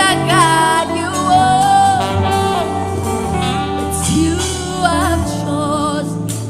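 Gospel worship song: a sung melody with wavering held notes over a steady bass line.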